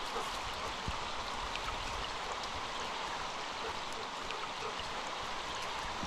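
Small forest stream running in a steady babble, with scattered faint ticks on top.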